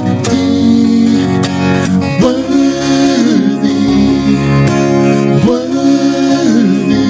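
A man singing a slow song, holding and bending long notes, over instrumental backing.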